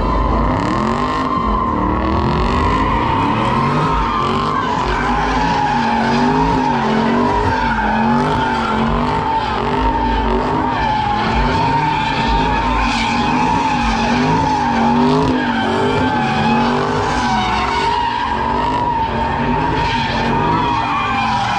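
A car sliding with its tires squealing in one long continuous screech while the engine's revs rise and fall about once a second.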